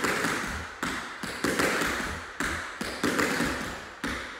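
Tap shoes striking a hard floor in about ten quick, crisp taps grouped in short clusters: shuffle pickups and ball changes. Each tap rings out briefly in the hall.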